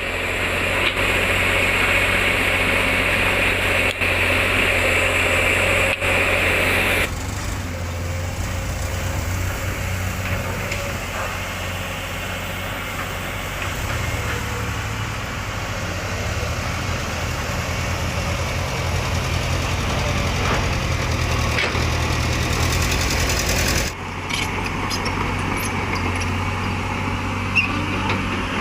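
Diesel engines of a Komatsu PC200 excavator and dump trucks running steadily, the sound changing abruptly about seven seconds in and again near the end.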